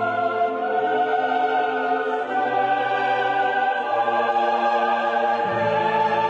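Background music: slow, sustained chords that change every second or two, with no beat.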